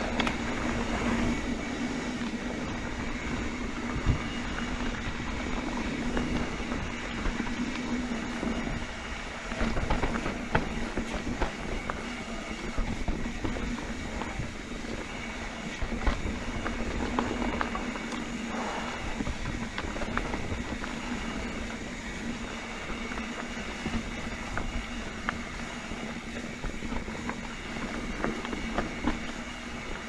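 Santa Cruz Hightower C carbon full-suspension mountain bike riding down a dirt singletrack: continuous rolling and rattling noise from tyres and drivetrain over the ground, with frequent sharp knocks and clicks over bumps and roots.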